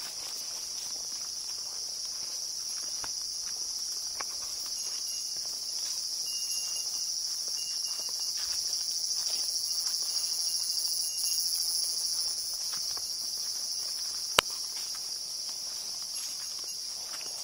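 A steady, high-pitched chorus of insects buzzing, swelling a little toward the middle, over faint footsteps on a dirt trail through brush. A single sharp click about fourteen seconds in.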